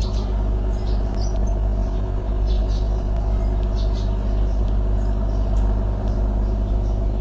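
A steady low hum with a constant pitched drone, unchanging throughout. Faint scattered high ticks and chirps sit above it.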